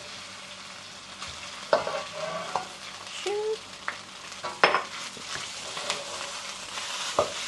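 Leftover jasmine rice being stirred in a wok of butter and minced garlic: a steady sizzle, with spatula scrapes and a few sharp knocks against the wok.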